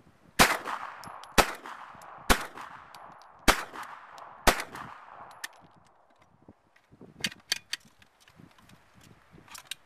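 Five single shots from a semi-automatic 9mm KP-44, about a second apart, each followed by a fading echo. Near the end come a few lighter clicks as the gun is handled, having run empty.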